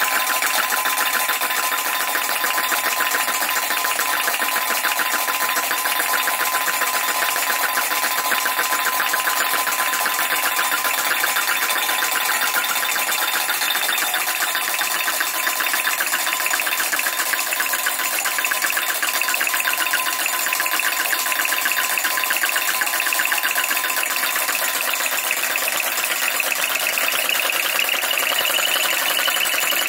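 PM Research #3 flame licker vacuum engine running and belt-driving a homemade four-stamp gold battery stamper: a rapid, even clatter of the engine and the dropping stamps that keeps up steadily.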